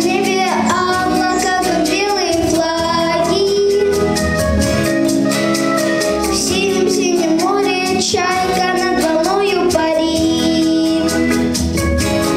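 A young girl singing a song into a handheld microphone, over an instrumental accompaniment with a steady beat.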